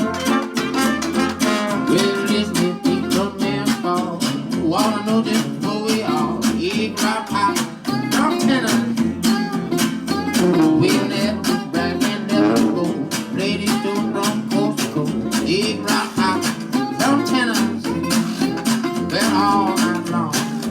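Traditional New Orleans–style jazz band playing a tune live, with a steady strummed rhythm under melody lines.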